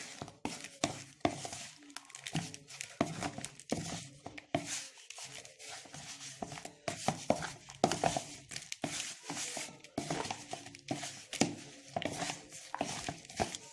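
Cubed raw chicken being tossed by hand with flour, starch and spices in a bowl: a continuous, irregular run of soft rustling, squishing and small clicks.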